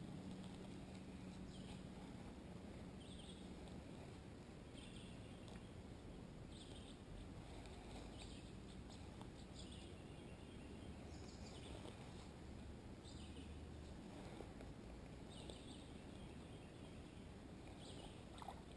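Near silence: quiet lakeside ambience, with faint short high-pitched sounds repeating about once a second.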